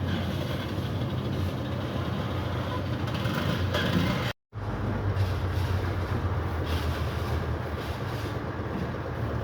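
A motor or engine running steadily with a low hum, cutting out for an instant about four seconds in.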